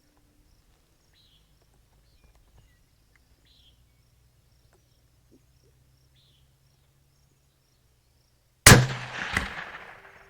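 A suppressed 6.5 PRC bolt-action rifle (Howa 1500 with a ThunderBeast Ultra 7 suppressor) fires once, near the end: a sudden loud report, a second sharp crack under a second later, and a tail that fades away.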